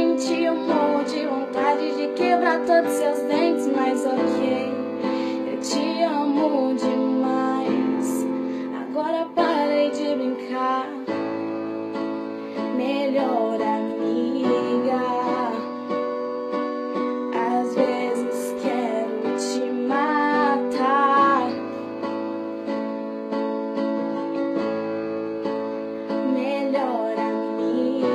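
Background song: pop music with guitar and piano and a female voice singing a wavering melody without clear words.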